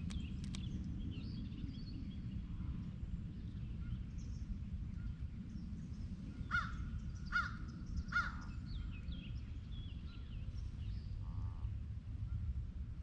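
A crow cawing three times in a row, the calls evenly spaced a little under a second apart, with faint chirps of smaller birds and a steady low rumble throughout.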